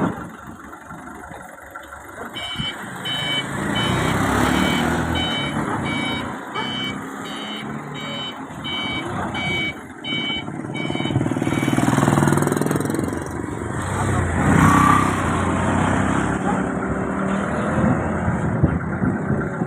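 A heavy vehicle's engine running, with a reversing alarm beeping in an even repeating pattern from about two seconds in until about halfway through, then stopping while the engine keeps running.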